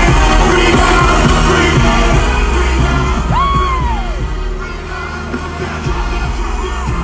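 Live concert music over arena speakers, with strong bass and a singer's voice; about three seconds in, a voice swoops up and back down.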